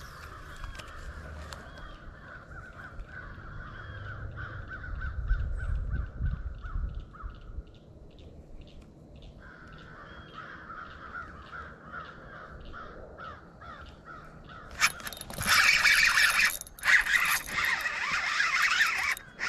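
Crows cawing, faint and repeated at first, then a loud run of harsh caws over the last few seconds.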